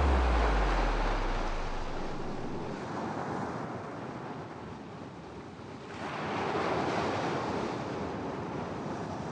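Sea surf: waves washing onto a beach, a steady rushing that swells again about six seconds in. A deep low note left over from the music dies away in the first second and a half.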